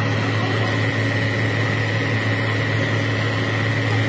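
Truck crane's diesel engine running steadily at idle: a constant low hum with a thin, steady high whine on top.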